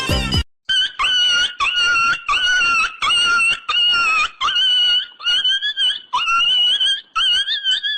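A meme sound effect of over a dozen short, high-pitched, animal-like squeals in quick succession, each with a slightly wavering pitch. They follow a burst of music that cuts off about half a second in.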